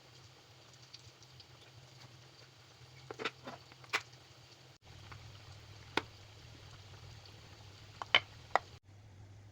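A handful of short, sharp clicks and knocks, a cluster about three seconds in, then single ones near four and six seconds and a pair near the end, over a low steady hum.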